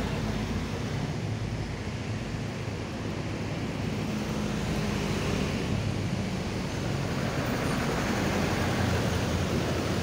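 Steady street traffic noise with a low engine hum, growing a little louder over the last few seconds.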